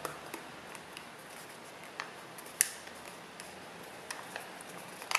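Small square of origami paper being folded and tucked by hand: faint rustling broken by scattered sharp crinkles and clicks, the loudest about two and a half seconds in.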